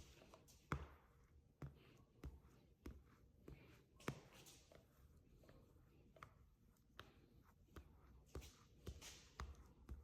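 Faint handling noises of window tint film being worked on glass: scattered light taps and clicks with a few brief rustles.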